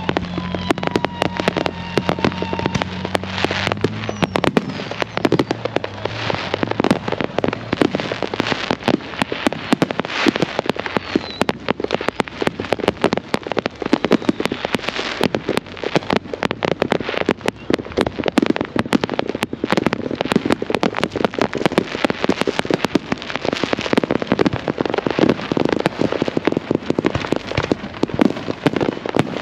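Fireworks going off in a dense, continuous barrage of pops, bangs and crackles, with no let-up. A steady droning tone sounds underneath for the first four seconds.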